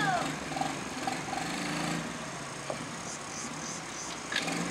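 Small ATV's engine running steadily as the quad bike rolls slowly, with a couple of short clicks.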